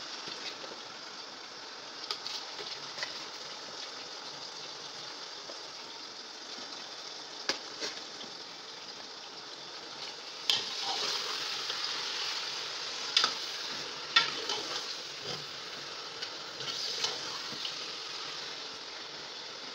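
Raw mutton pieces sizzling in hot oil and fried onions in a large aluminium pot, stirred with a metal ladle that clinks against the pot now and then. The sizzling grows louder about ten seconds in as the meat is turned over.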